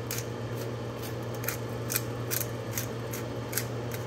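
Hand pepper mill being twisted over a stainless steel pot, grinding peppercorns in a run of short, crisp crunching clicks, about two or three a second.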